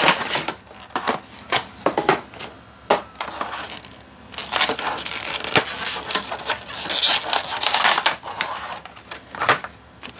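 Retail box packaging being opened by hand: rustling and crinkling with sharp clicks and knocks, and a longer stretch of rustling from about four to eight seconds in.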